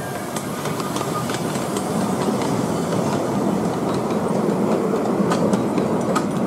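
10¼-inch gauge miniature railway train, a steam locomotive hauling passenger coaches, rolling past on a curve: a steady rumble of wheels on rail with scattered sharp clicks, getting louder over the first couple of seconds as the coaches come close.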